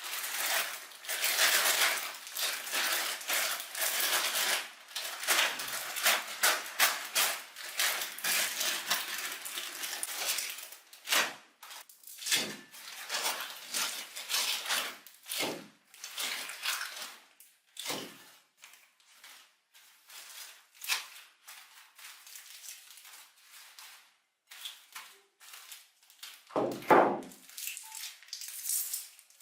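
Crisp crackling and crunching of a puffed rice cake being crushed in a grinder: dense for about the first ten seconds, then broken into separate crunches, with one heavier thud near the end.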